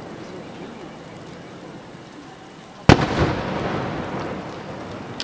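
An aerial firework shell bursting: one sharp, loud bang about three seconds in, followed by a rolling echo that slowly dies away. Before it there is only a low outdoor background hum.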